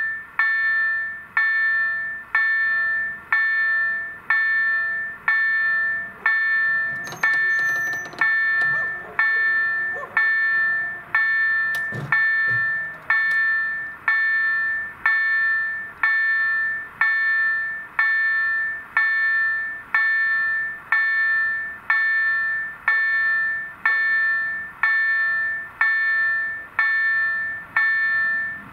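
EDE-1 electronic level-crossing bell sounding the crossing warning, a bell-like chime of several tones struck over and over at a little under one strike a second, each strike fading before the next. It means the automatic crossing is activated for an approaching train. A single thump comes about twelve seconds in.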